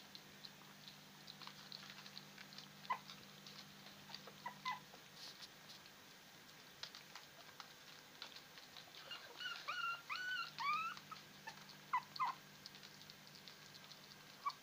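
Russian toy terrier puppies lapping and smacking at a plate of porridge, a steady patter of small wet clicks. Scattered single high squeaks come from the puppies, and a little past halfway there is a run of high-pitched whimpering squeaks, the loudest part.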